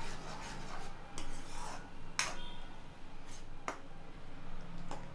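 A steel spoon stirring thick spinach gravy in a metal kadhai: soft scraping and rubbing, with a few sharp clinks of the spoon against the pan.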